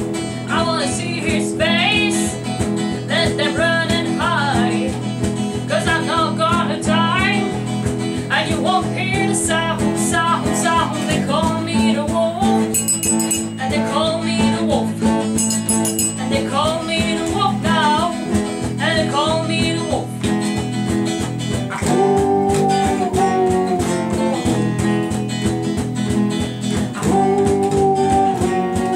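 Small band playing a blues-rock groove: acoustic guitar strumming under a lead guitar line of bent, wavering notes, with a triangle struck twice around the middle.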